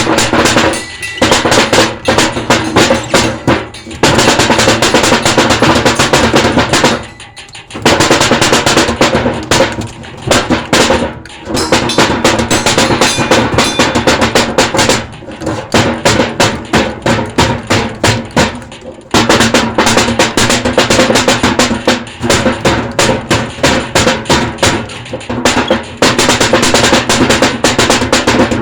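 Fast, loud drumming: rapid strokes and rolls on drums, broken by brief pauses between phrases.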